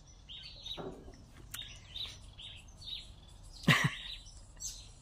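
Small birds chirping over and over in the background, short high chirps throughout. A little before four seconds in, a woman gives a brief laugh, the loudest sound.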